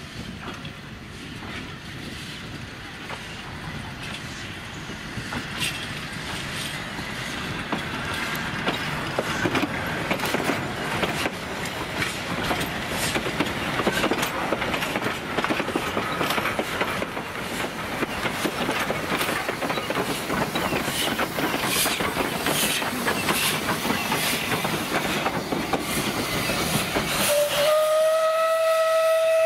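Steam train passing: the 1902 Beyer Peacock 2-6-0 tender locomotive C22 and its carriages rolling steadily closer, their wheels clattering over the rail joints and growing louder. Near the end the locomotive's steam whistle sounds one long, steady note.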